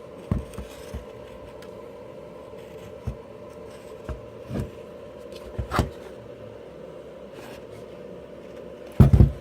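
Scattered light clicks and knocks of a plastic power-tool housing being handled and taken apart, over a steady faint hum, with a louder thump near the end.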